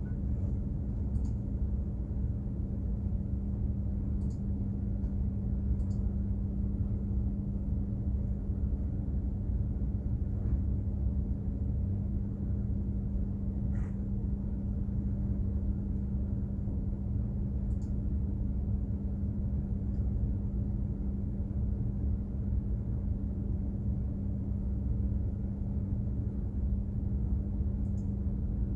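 Steady low drone of a container ship's machinery heard aboard, with a constant hum tone over a deep rumble and a few faint ticks.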